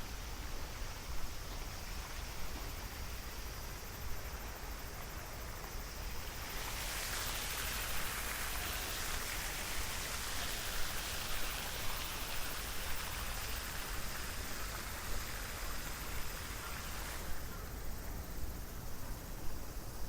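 Cicada buzzing, a shrill hiss that starts abruptly about six seconds in and stops abruptly around seventeen seconds. Under it runs a low, steady rumble.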